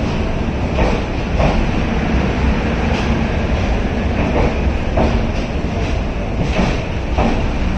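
Rajdhani Express train rolling slowly into a station. The wheels clack over the rail joints in a recurring rhythm over a continuous low rumble.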